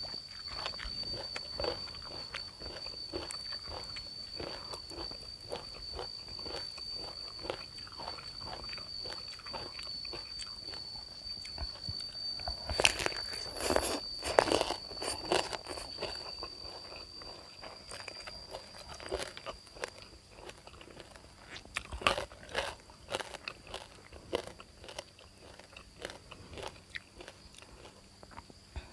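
Close-up mouth sounds of eating: crunching and chewing with many short clicks, and a louder slurp of khanom jeen rice noodles about halfway through.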